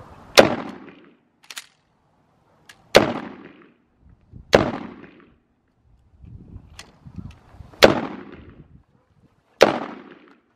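Five 9mm pistol shots from a Glock 19 Gen 5, unevenly spaced, each a sharp crack with a short echoing tail. A few much fainter sharp clicks fall between the shots.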